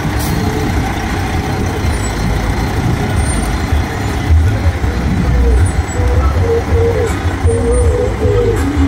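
Fire engine driving slowly past, its diesel engine running with a steady deep drone.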